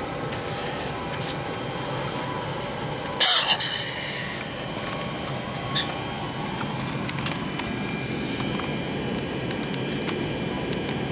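Airbus A340-600 cabin ambience at the gate: steady ventilation hum with faint steady tones and scattered clicks. About three seconds in, a short, loud rush of noise.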